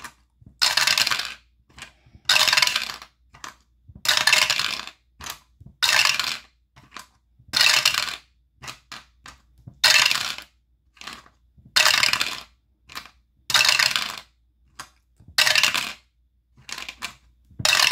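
Two eight-sided dice rattling in a dice roller, rolled over and over about every two seconds: nine short clattering rolls, with a few small clicks between them.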